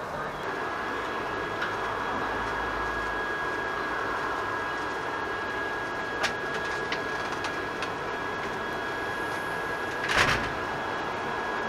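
A few light metallic clicks and clinks as steel brackets and tubing of a go-kart frame are handled, over steady background noise with a faint high steady tone; a louder, brief clatter comes about ten seconds in.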